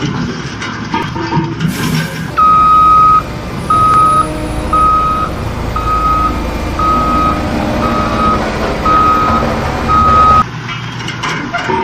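Vehicle reversing alarm beeping at one steady pitch about once a second, eight beeps with the first one held longer, over a low engine rumble. It cuts off abruptly.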